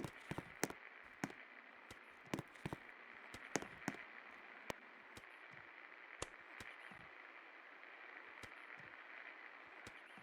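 56-inch Electro Wind industrial ceiling fan running with a steady faint airy hiss, with scattered sharp clicks and ticks: many in the first four seconds, fewer after.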